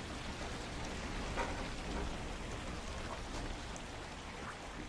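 Faint scattered clicks and taps of small parts being handled on a model truck chassis, over a steady hiss.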